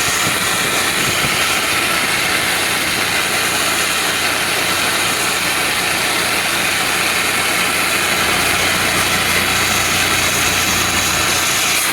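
Pressure washer running steadily, its engine drone under a constant hiss of high-pressure water spray flushing an AC unit's coils.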